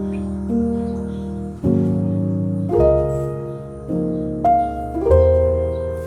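Soft background piano music: slow sustained chords and notes, each new one struck about every second and left to ring and fade.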